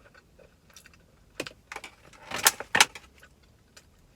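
Close-up eating sounds: a handful of wet mouth smacks and clicks while chewing barbecue-sauced rib bites, the loudest two near the middle.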